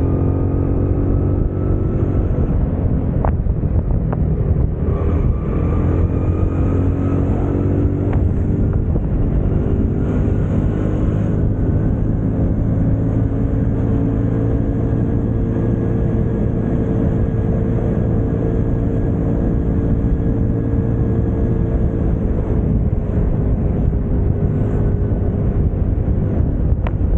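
Stock Yamaha Mio scooter's single-cylinder four-stroke engine running at a steady cruise, its hum drifting gently up and down in pitch with small throttle changes.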